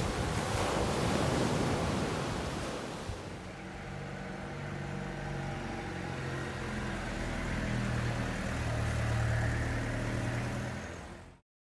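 Stormy sea surf with wind buffeting the microphone, easing after about three seconds into a steady low hum with pitched tones, like a motor running; the sound cuts off abruptly near the end.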